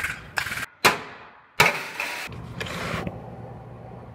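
Collision-repair shop work sounds cut quickly together: sharp metal bangs and clanks, then a lower steady hum near the end.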